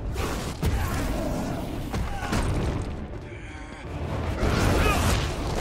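Soundtrack of a TV battle scene: a deep booming rumble under music, with shouted voices, easing off briefly past the middle.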